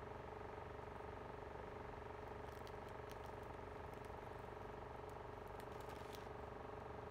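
Electric fan running with a steady motor hum. A run of faint light crackles comes in the middle.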